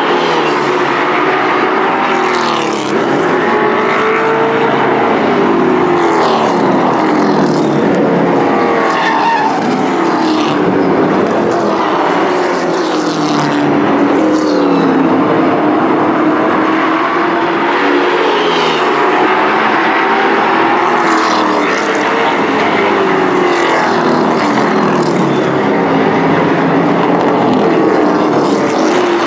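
A pack of Thunder Truck race trucks running laps on a short oval. Several engines overlap, each rising and falling in pitch as the trucks go around.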